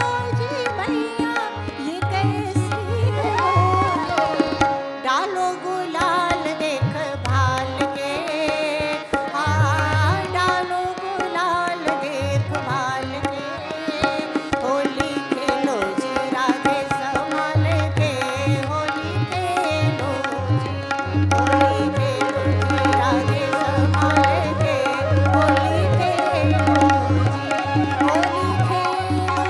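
Indian devotional song (bhajan) performed live: a woman sings a winding melody over harmonium and tabla. The tabla's deep bass strokes drop out through the middle and come back about two-thirds of the way through.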